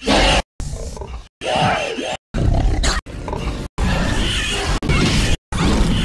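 A run of short Acceraptor ('Slasher') dinosaur roars and growls, the designed creature voice of a TV sound effect. There are about eight pieces, each under about a second long, each cut off abruptly by a brief dead silence.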